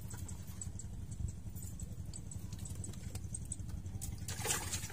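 Steady low engine-like drone, with faint light ticking several times a second over it that stops about three seconds in, and a brief rustling noise near the end.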